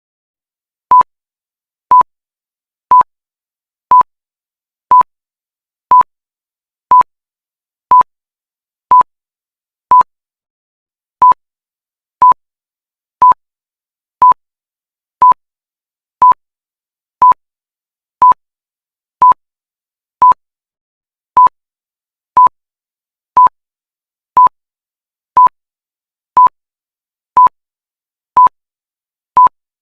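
Countdown timer sound effect: a short, single-pitched electronic beep once a second, with silence between beeps.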